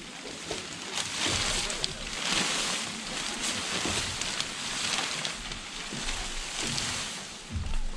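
The fabric of a one-pole tent rustling as it is pulled, shaken out and spread by hand, a crinkly hiss that swells and fades with each handful. A few low thumps come near the end.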